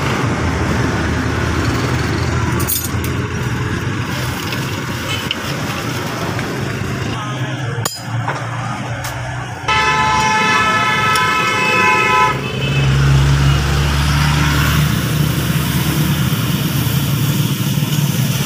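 Vehicle horn sounding one steady blast of about three seconds in the middle, over continuous road traffic noise, with a low engine drone starting just after the horn stops.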